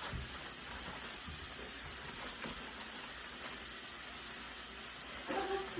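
Steady sizzle of food frying in hot oil, with a faint voice near the end.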